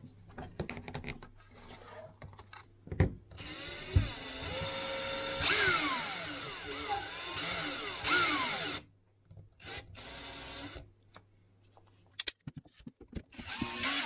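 Makita cordless drill/driver driving a screw into a plastic flush-mount installation box. It runs in bursts: a long run a few seconds in whose whine falls in pitch twice as it slows, then a shorter run, then another near the end. Light handling clicks and a couple of knocks come before the first run.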